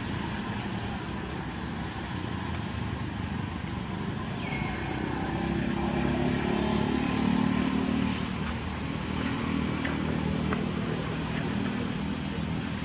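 A motor vehicle engine running over a steady outdoor hum, growing louder around the middle and easing off again.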